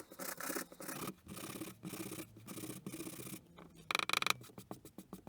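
Sandpaper rubbed back and forth on cardboard, sanding out a punched hole, in even strokes about two a second. About four seconds in there is a brief louder scrape.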